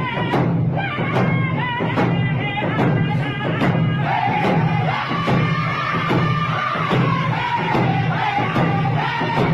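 Indigenous hand-drum song: a group of singers chanting in unison over an even beat on hand-held frame drums, a little over two strokes a second.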